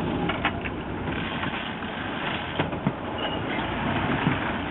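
A boat's engine running steadily under a rush of wind and water noise, with a few sharp clicks and knocks.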